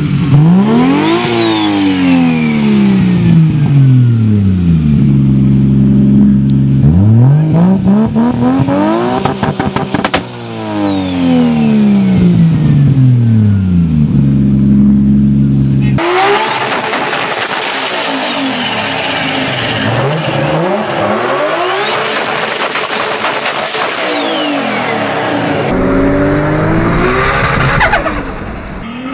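Turbocharged car engines revved hard again and again, each rev climbing and then dropping back to a steady idle, with a high whistle rising and falling along with the revs. The sound changes abruptly twice, once about halfway through and once near the end, as one car gives way to another.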